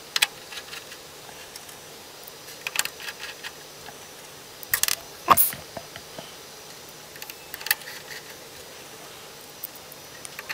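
Small steel screws and a screwdriver clicking and clinking as screws are driven into a PoE daughtercard on a router's motherboard. The clicks come scattered and irregular, with the loudest cluster about five seconds in.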